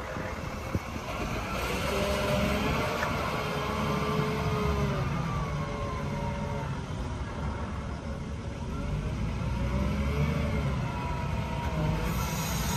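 Volvo L90G wheel loader's six-cylinder diesel engine running as the machine drives and turns, with whining tones that rise and fall over the engine note.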